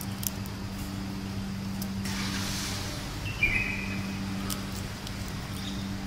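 An African grey parrot nibbling a nut held in its foot, its beak making faint clicks over a steady low hum, with a short high squeak about three and a half seconds in.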